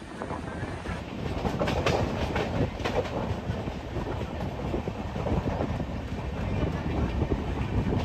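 Ujjaini Express passenger coaches running along the track, heard from an open coach door: a steady rumble with repeated clacking of the wheels over the rails, louder from about a second in.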